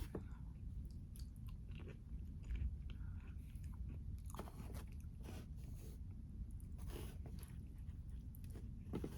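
A person chewing and biting food, close to the microphone: irregular crunches and wet mouth clicks over a low steady hum.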